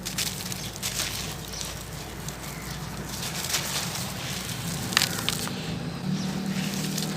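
Gritty sand-cement hearts being crumbled between fingers: steady crunching with many small crackles and a sharper snap about five seconds in.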